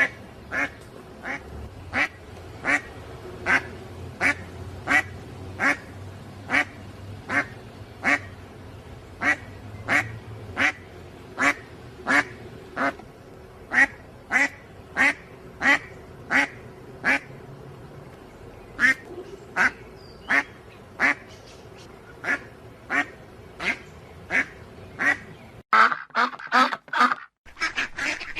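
A duck quacking in a steady series of single short quacks, about one and a half a second. Near the end the sound cuts abruptly to a denser run of overlapping calls.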